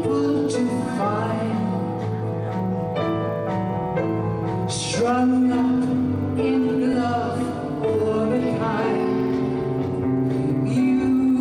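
Live rock band playing while women sing, a lead voice joined by a small backing chorus, holding long notes.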